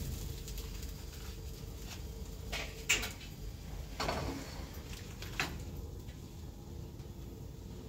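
A spatula clinking and scraping against a frying pan and plate as fried fish is lifted out: a few sharp knocks, the loudest about three seconds in, others near four and five and a half seconds, over a low steady hum.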